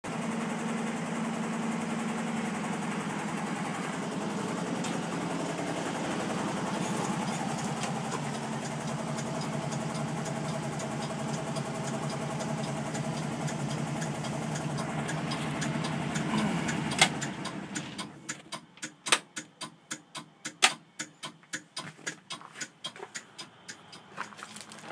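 Air-cooled flat-four engine of a 1965 Volkswagen bus idling steadily, then shutting off about three-quarters of the way through. After that come sharp, irregular clicks and knocks.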